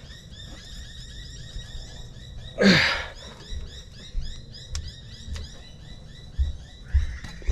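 Corroded front wheel speed sensor being twisted and pulled out of its bore in the steering knuckle with pliers: a few soft knocks, and one short, loud creak falling in pitch about three seconds in. A fast, steady, high chirping runs underneath throughout.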